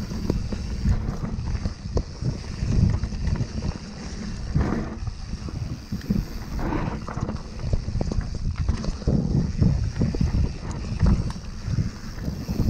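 A Yeti SB150 mountain bike ridden fast down a dirt trail: wind buffeting the microphone and the tyres rumbling over the ground in uneven gusts, with frequent sharp clicks and rattles from the bike over roots and rocks.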